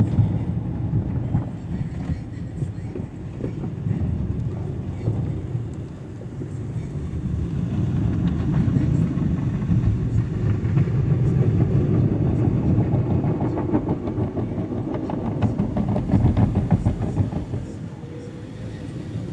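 Spinning cloth brushes of an automatic car wash slapping and rumbling against the car, with water spraying on the glass, heard muffled from inside the cabin. It grows louder and busier as the brushes pass over the windshield in the second half.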